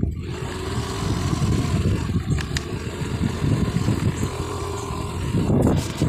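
Wind buffeting the microphone of a moving road vehicle, with its engine running steadily underneath; it gets louder just before the end.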